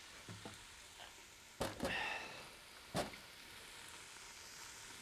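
Diced onion, green pepper and jalapeño sizzling faintly in olive oil in an Instant Pot's stainless inner pot on sauté. There are two sharp knocks, the first about a second and a half in, the second about three seconds in.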